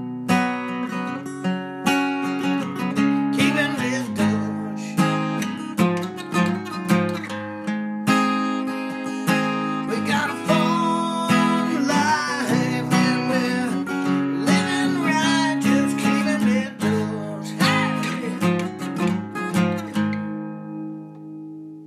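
Acoustic guitar music, plucked and strummed, fading out at the end.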